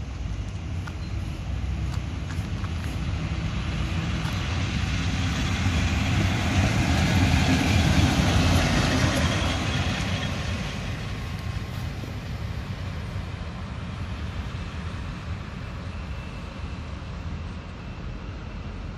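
HŽ series 2041 diesel locomotive running light, its engine getting louder as it approaches and passes close by about eight seconds in, then fading as it moves away.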